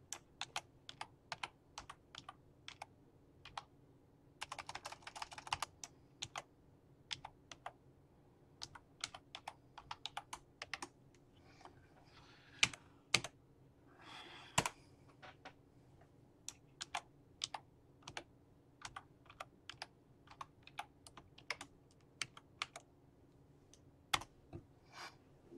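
Computer keyboard being typed on: single key clicks at an irregular pace as a passphrase is entered and re-entered, with a quick run of rapid clattering keystrokes about five seconds in.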